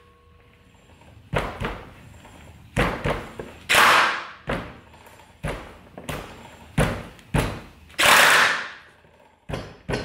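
Palm smacks on a motorcycle's rear tyre as the wheel is spun by hand, seating the wheel and hand-tight axle nut on the Ducati Diavel's single-sided swingarm: about a dozen irregular thuds, with two longer swishes about four and eight seconds in.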